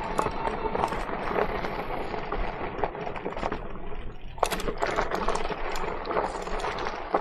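Electric bike ridden over a rough dirt trail: steady tyre and riding noise with many small rattles and knocks from the bike.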